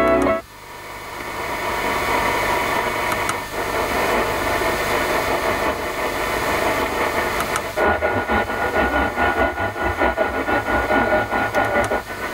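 Medium-wave AM reception on an Audi MMI Basic factory car radio stepped manually up the band from channel to channel: hiss and static between stations, cutting out briefly at each tuning step, about every four seconds. After about eight seconds steady whistle tones sound through the noise.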